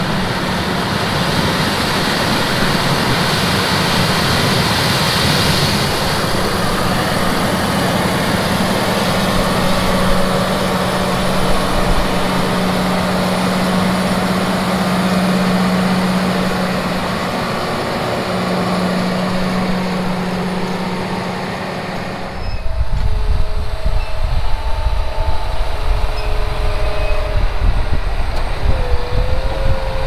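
John Deere 7750 self-propelled forage harvester chopping ear corn, its engine and cutterhead running steadily with a constant hum. About 22 seconds in the sound changes abruptly to the heavier, lower running of a John Deere tractor packing the silage pile.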